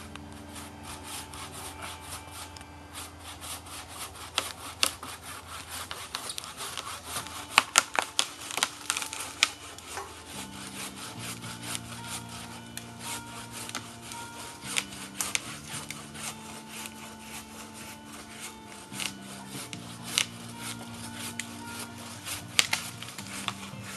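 Saw cutting through timber by hand: repeated rasping strokes with sharp, irregular cracks and scrapes, busiest around the middle.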